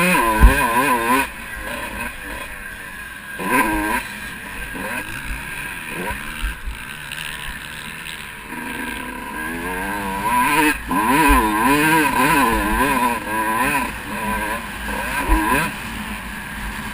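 Kawasaki KX125 two-stroke motocross bike being ridden hard on a dirt track, its engine revving up and dropping back again and again as the throttle is worked, with a few low thumps from the bumps.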